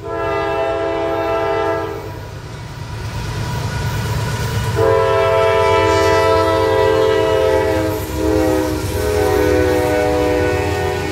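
CSX freight locomotive's air horn blowing long blasts: one that stops about two seconds in, then another from about five seconds in that runs on with a brief break near eight seconds. Under it, the low rumble of the lead diesel locomotives grows as they pass close by, with freight cars rolling behind.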